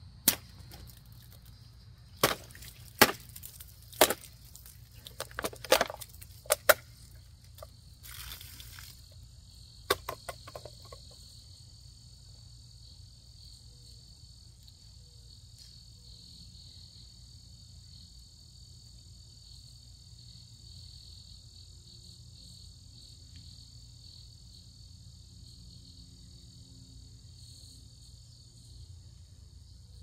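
A Sheffield multitool's knife blade stabbing and slashing into a plastic water bottle, making a series of sharp plastic cracks over the first seven seconds, a brief crinkling around eight seconds, and a couple more cracks around ten seconds. A steady high insect buzz runs underneath and is all that is left afterwards.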